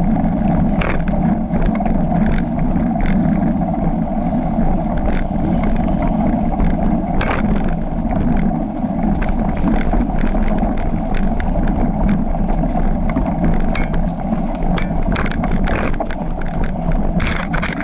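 Early-1990s Marin rigid mountain bike, no suspension, rolling fast over a dirt trail: a steady low rumble from the tyres, broken by frequent short clicks and rattles as the bike goes over bumps.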